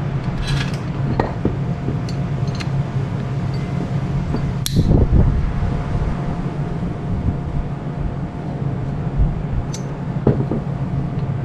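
A metal step pulley and small tools handled on a wooden workbench: light clicks and taps, with one louder clank about five seconds in, over a steady low hum.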